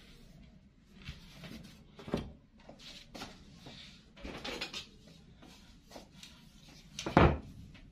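Light knocks and rustles from plastic drafting tools, a large set square and a long ruler, being handled on a cloth-covered cutting table. The loudest knock comes near the end.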